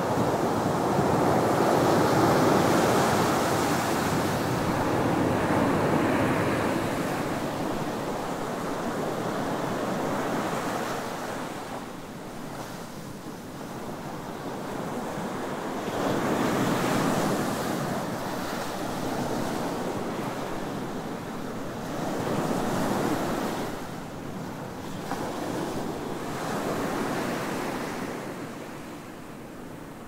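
Ocean surf breaking and washing up a sandy beach, swelling and fading with each wave. The loudest wash comes in the first few seconds, and further surges follow about halfway through and near the end.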